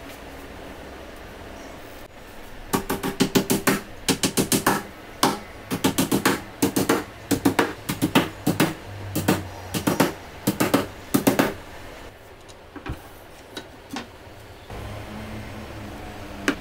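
Claw hammer driving small nails through a board panel into a wooden frame: quick runs of sharp taps with brief pauses between them, for about nine seconds. A few lighter knocks follow near the end.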